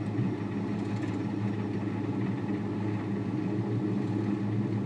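Six-cylinder engine idling steadily while misfiring on cylinders 2, 4 and 6, enough to shake the car.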